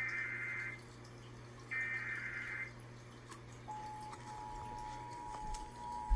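Emergency Alert System required monthly test: two one-second bursts of the SAME header's screechy digital data tones, a second apart. About a second after the second burst, the steady two-tone EAS attention signal starts and holds.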